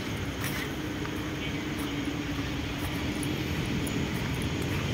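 Steady low rumble of distant motor engines, with a faint hum that fades out about halfway through.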